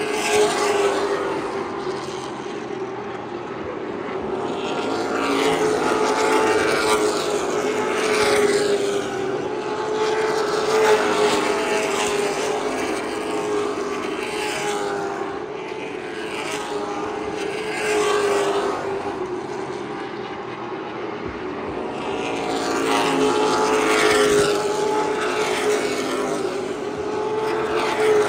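Short-track race cars running laps in a pack, their engines swelling loudly several times as cars go by and fading between passes, over a steady engine drone from the cars around the rest of the track.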